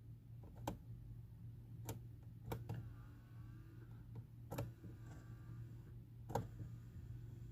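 Newly installed HVAC mode door actuator in a Hyundai Tucson running back across its travel. A faint motor whine comes and goes twice, among a few sharp separate clicks, over a steady low hum.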